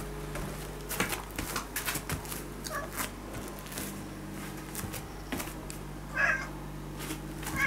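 A cat meowing in short, wavering calls, a few times, the loudest about six seconds in, with scattered light clicks and knocks.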